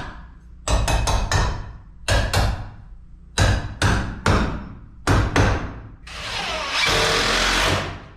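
Hammer nailing steel stud shoes onto wooden wall studs: quick runs of ringing strikes in four groups, then a steady noisy sound of about two seconds near the end.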